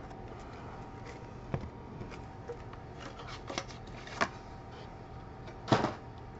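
Light taps and clicks of cardboard trading-card boxes being handled, scattered and faint, with one louder short rustle or knock near the end, over a faint steady hum.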